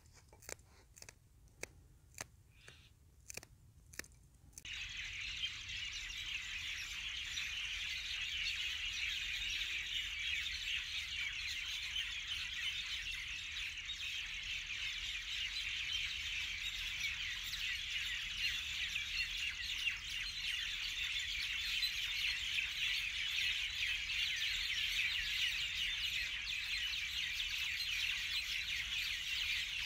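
Knife clicking against a clay bowl as green chillies are chopped, about nine sharp clicks. About four and a half seconds in, a steady high-pitched hiss starts suddenly and carries on, much louder than the clicks.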